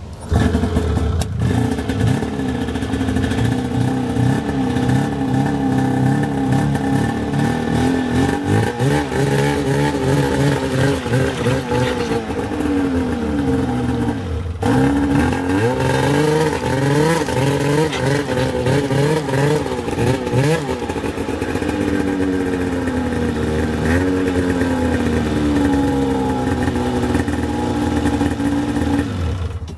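Polaris Liberty 800 two-stroke twin snowmobile engine running, revved up and down several times in the middle, with a brief break about halfway, then settling back to a steadier run.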